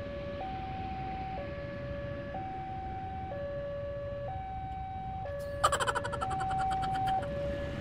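Railway level-crossing warning alarm sounding a two-tone electronic signal, stepping between a lower and a higher tone about once a second, still going as the barrier arm lifts after the train has passed. About five and a half seconds in, a loud, rapid clattering rattle cuts across it for about a second and a half.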